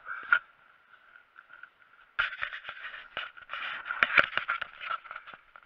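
Handling noise on the camera: scraping and rubbing with many sharp knocks, starting about two seconds in.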